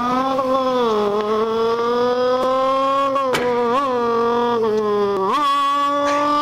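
A young man imitating a car engine with his voice: a sustained, buzzing engine note that slowly climbs in pitch. It blips up and back near the middle, then jumps to a higher note near the end, like a car revving up and shifting gear.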